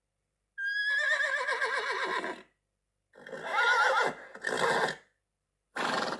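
Animal calls: a long call with a quavering, wavering pitch, then three shorter calls, the last one cut off.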